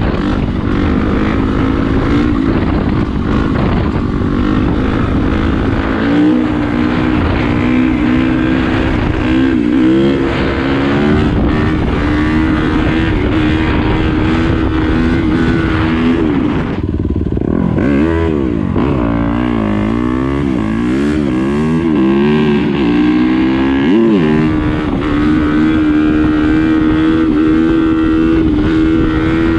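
Yamaha YZ250F dirt bike's single-cylinder four-stroke engine running under throttle while the bike is ridden on its back wheel in a wheelie. The revs hold mostly steady, then rise and fall several times around the middle before settling again.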